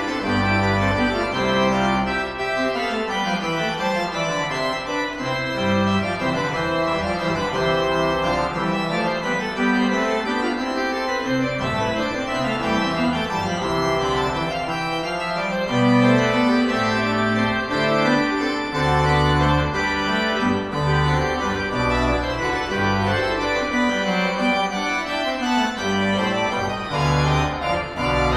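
Church pipe organ playing a piece: held chords with many tones sounding together, over a bass line that moves from note to note.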